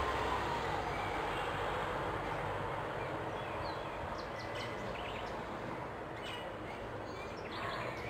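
Steady outdoor background rumble and hiss. From about three and a half seconds in, a few faint, short, high bird chirps sound over it.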